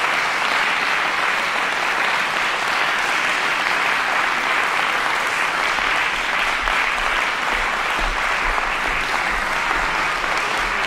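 Audience applauding steadily after a violin and piano performance.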